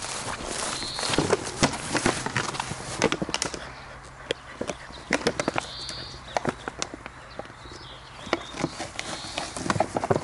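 A puppy biting and shoving a brown plastic 1.5-litre bottle about on grass: irregular sharp crackles and knocks of the plastic, thickest in the first few seconds and sparser after.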